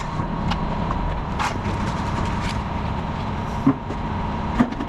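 Diesel engine of a Wacker Neuson mini excavator running steadily, with a faint whine and a few short, sharp knocks, typical of the bucket or attachment striking.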